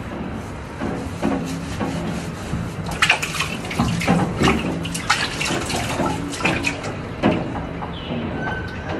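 Water splashing and sloshing in a sink as a wet dog's coat is scrubbed by hand, with many short irregular splashes.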